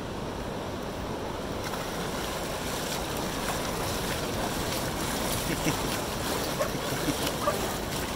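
Waves washing up a sandy beach, with wind on the microphone. A dog splashes through the shallow water, with a few sharper splashes in the second half.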